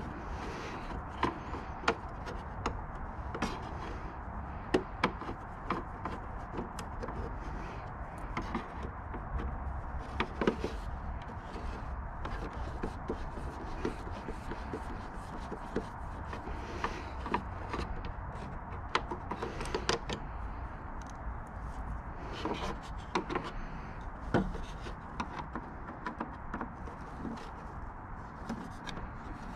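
Screwdriver prying and scraping at the clips and fittings on the back of a Honda Gold Wing's hard plastic body panel: irregular clicks, knocks and scrapes of the metal tip on plastic.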